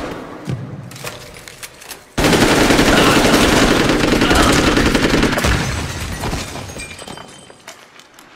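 Several automatic rifles firing together in a cave. Sustained rapid fire starts suddenly about two seconds in, lasts about three seconds, then fades into echo with a few scattered shots. The opening moment holds the dying tail of an earlier burst.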